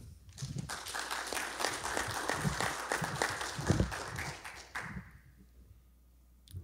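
Audience applauding, fading away after about four and a half seconds.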